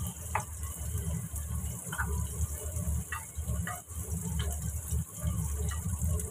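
Sliced shallots sizzling in oil in a wok. A spatula scrapes and knocks against the pan every second or so as they are stirred, over a steady low rumble.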